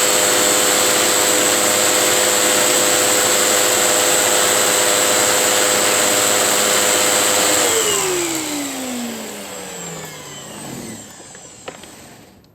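Hoover vacuum cleaner motor running steadily with a high whine, then switched off about seven and a half seconds in, its whine falling in pitch as the motor spins down. A single click near the end.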